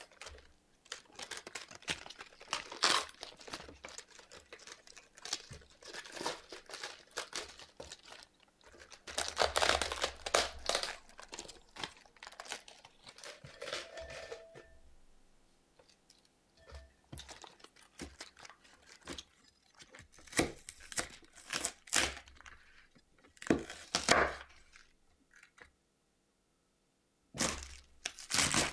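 Cabbage leaves being pulled off the head and torn apart by hand, with crisp crackling, tearing and rustling in irregular spells and short pauses. The sound drops to dead silence for a moment near the end.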